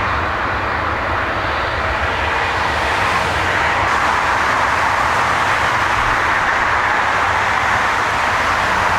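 Jet airliner engines running, a loud steady noise with a low rumble underneath, swelling slightly about three seconds in.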